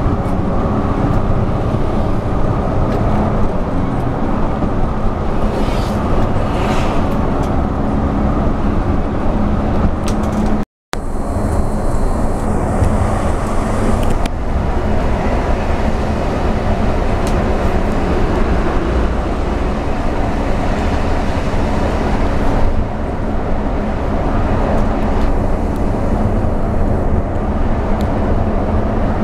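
Bus engine and road noise heard from inside the cabin of a moving bus, a steady low rumble under way. The sound drops out for a moment about eleven seconds in, then carries on.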